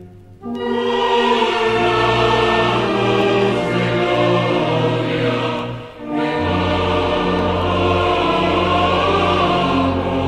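Choir singing with orchestra, a national anthem, beginning about half a second in and dipping briefly about six seconds in before carrying on.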